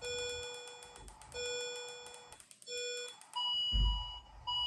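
Simulated patient monitor sounding alarm tones. A low tone about half a second long repeats roughly every 1.3 s while the simulated oxygen saturation is low. As the saturation is raised, a higher beeping tone takes over about three seconds in. Quick light clicks from the handheld keyboard run under the first part, and a dull thump comes past the middle.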